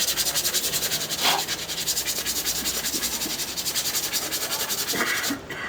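Rapid, even hand scraping on brake parts, about eight strokes a second, stopping abruptly near the end.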